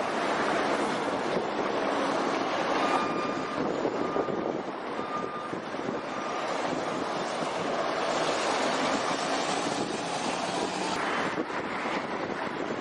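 City street traffic noise as a MAN F2000 truck pulling a drawbar trailer drives past, with wind on the microphone. In the first half there are short high tones about once a second.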